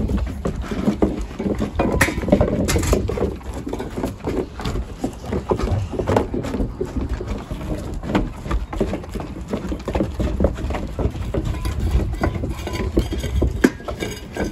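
Puppies' claws clicking on wooden deck boards as they jostle around their bowls, with licking at a bowl: a steady run of small irregular clicks and knocks over a low rumble.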